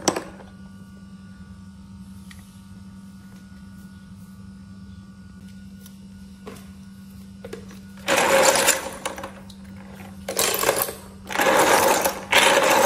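Sea snail shells rattling and grinding against each other in several rough bursts from about eight seconds in, as the snails are scrubbed in a basin to wash out sand. A sharp knock at the very start and a steady low hum underneath.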